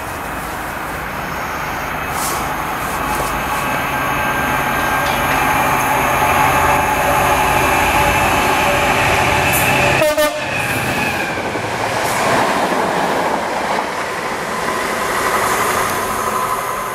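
GBRf Class 66 diesel locomotive, with its EMD two-stroke V12, running through at speed hauling a Class 466 electric unit. Its engine and wheel rumble grow louder as it approaches and are loudest as it passes about ten seconds in. The rail noise of the train stays loud after that.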